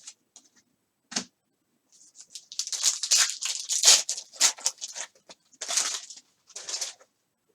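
Trading cards and their packaging being handled: a run of quick rustling and sliding noises, with a single click about a second in.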